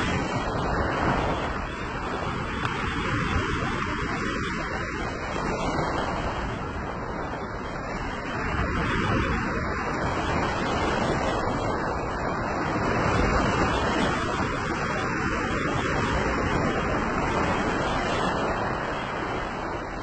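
Small waves breaking and washing up a sandy beach: a steady rush of surf that swells and eases every few seconds.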